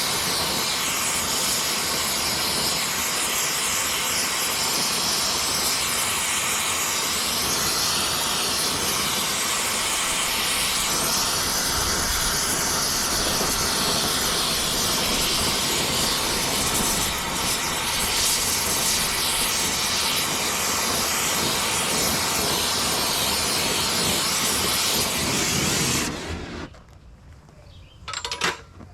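Gas heating torch burning with a steady hissing roar as it heats the dented steel axle housing. It shuts off abruptly about 26 seconds in, and a single sharp clank follows near the end.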